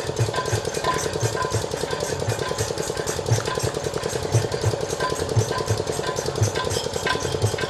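Folk instrumental accompaniment: a dholak and small hand cymbals beating a fast, even rhythm over a held harmonium note.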